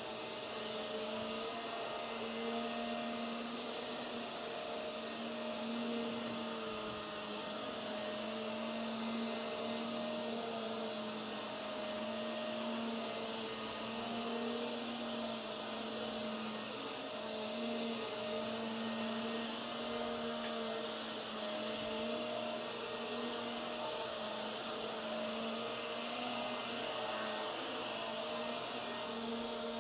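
Hoover WindTunnel Tangle Guard upright vacuum running with its brush roll on, a steady motor hum with a thin high whine over it, the pitch wavering slightly as it works the carpet.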